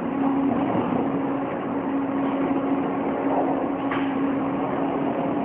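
Steady machine hum: a constant droning tone over a broad, even noise, with a faint click about four seconds in.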